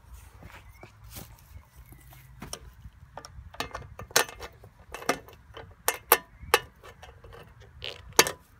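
Irregular sharp metallic clicks and taps of hand tools and loose parts being worked while unbolting a part from a riding lawn mower. The clicks come more often from about three and a half seconds in, the loudest about six seconds in and just before the end.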